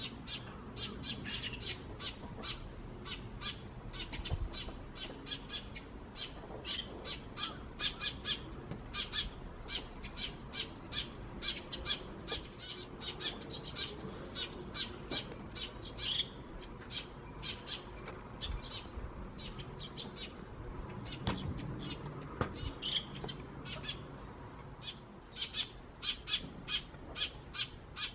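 A flock of Eurasian tree sparrows chirping continuously: short, sharp chirps tumbling over one another at about two to three a second.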